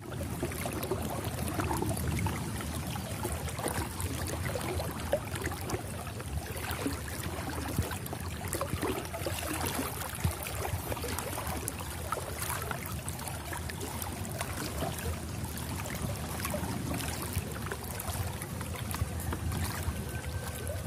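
Water sloshing and trickling with small irregular splashes, over a low steady rumble.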